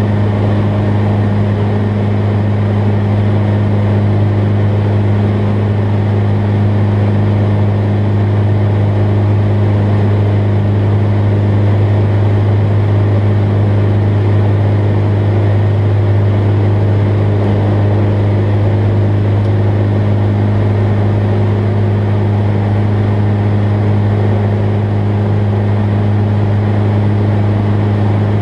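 Jabiru light aircraft's engine and propeller droning steadily at climb power, heard from inside the cockpit.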